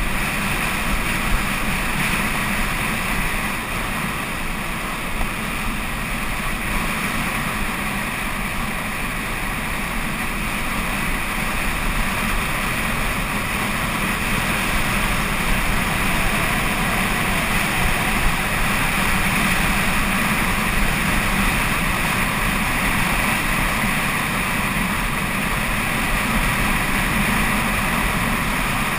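Wind rushing over a moving camera's microphone, mixed with the rumble of tyres rolling over a gravel road on a fast downhill run. The noise is steady and unbroken throughout.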